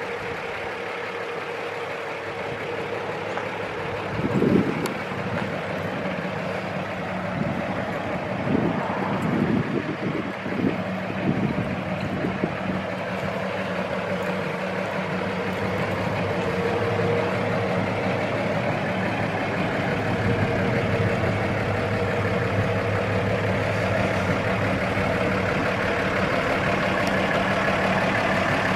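A 1949 GMC pickup's 228 cubic-inch inline-six idling steadily, with a few brief louder bumps between about four and twelve seconds in.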